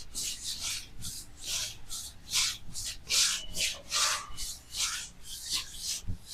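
A brisk run of rubbing strokes, about four a second, each a short hiss. This fits hands rubbing over a body. No joint cracks are heard.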